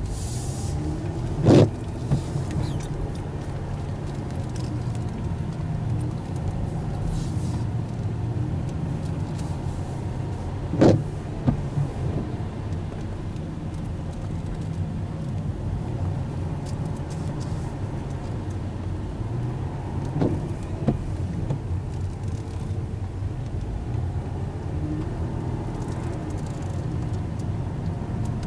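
Car cabin noise while driving on a wet road: a steady low engine and road rumble with tyre noise. Three brief knocks come about ten seconds apart.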